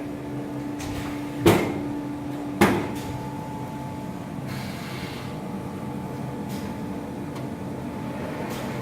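CNC machining centre running with a steady hum, broken by two sharp clunks about a second apart; after the second clunk the hum's steady tone shifts to a higher note.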